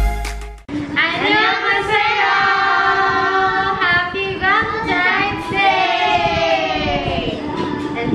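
Music stops abruptly just after the start, then women's and a girl's voices sing together in a few long, drawn-out phrases with held, gliding notes.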